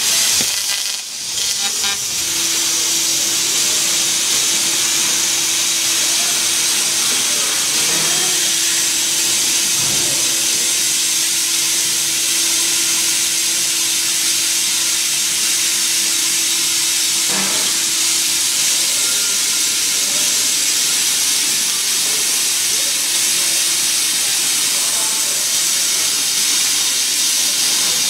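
Laser cutting machine cutting steel plate: the pressurised gas jet at the cutting nozzle gives a loud, steady hiss. A steady hum sounds under it for the first two-thirds.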